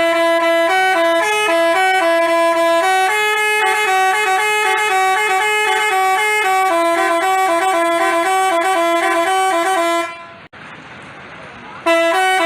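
Basuri telolet multi-tone bus horn playing a quick melody of stepping notes. It cuts off about ten seconds in and starts again just before the end.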